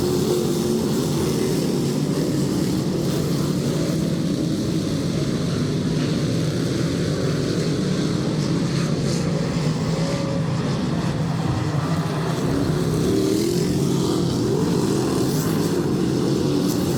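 A field of dirt-track race cars running laps on the oval, their engines making a steady, continuous sound whose pitch wavers as the cars go around.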